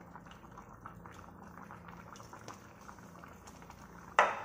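Sprite-and-sugar sauce simmering around a whole chicken in a stainless steel pot, bubbling with many small pops. A sudden loud knock comes near the end.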